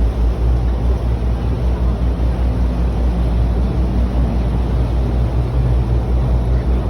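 River tour boat's engine running with a steady low drone, under an uneven rumble.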